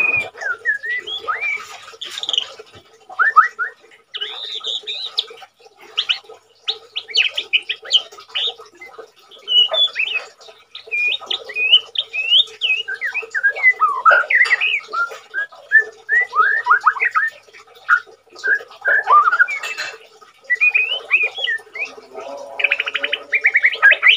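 White-rumped shama (murai batu) singing a long, varied song of short whistles and quick rising and falling notes, with a fast buzzy trill near the end. The bird is in moult yet still singing often.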